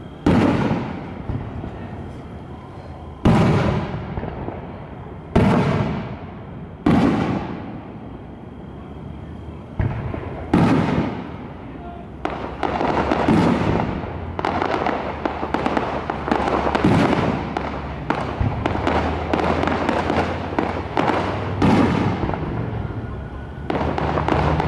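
Aerial fireworks shells bursting overhead: sharp booms every few seconds, each fading away over a second or so. The bursts come thicker and overlap in the second half.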